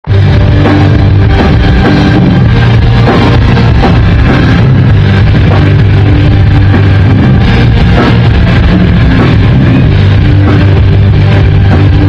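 Rock band playing live, very loud: electric guitars, bass and a drum kit together.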